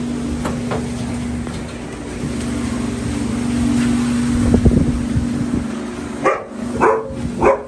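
A dog barks three times in quick succession near the end, about 0.6 s apart, over a steady low hum.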